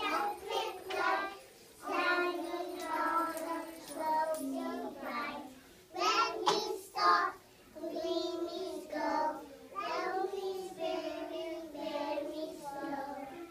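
A group of young children singing a song together in short phrases.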